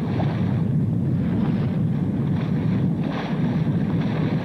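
Wind and rushing sea water aboard a yacht sailing in open water: a steady low rumble with a hiss of spray that swells and eases.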